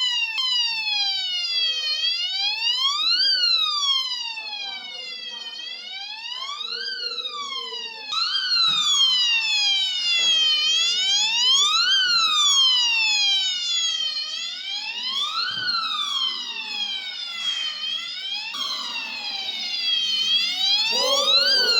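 Electronic fire alarm siren wailing, its pitch sliding slowly up and down about once every three to four seconds. It drops quieter for a few seconds partway through, then comes back loud.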